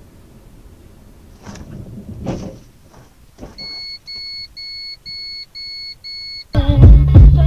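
Low cabin hum of a car, then a few knocks about two seconds in as it bumps into the back of the SUV ahead. Six evenly spaced high electronic beeps follow, about two a second. Loud music with a heavy bass beat cuts in near the end.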